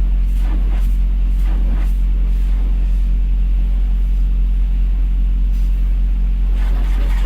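Diesel semi-truck engine running, a loud, steady low drone with an even hum over it.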